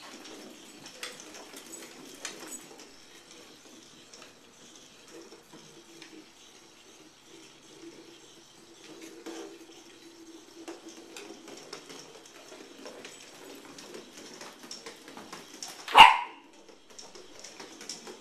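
Weasel ball toy's small motor whirring with light rattles as it rolls about a wooden floor, then a corgi puppy's single sharp bark about two seconds before the end.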